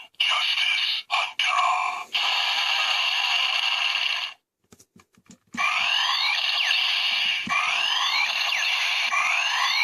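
Electronic sound effects and music played through a DX Break Gunner toy's small speaker, with a few sharp plastic clicks about halfway through and sweeping, repeating tones in the second half.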